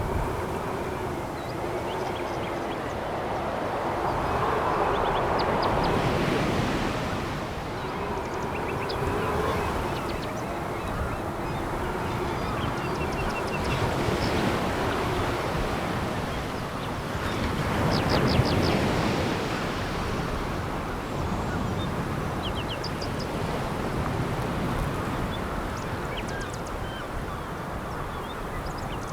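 Sea waves breaking and washing over a pebble beach, the surge rising and falling over several seconds, with its strongest swells about six seconds in and again near eighteen seconds.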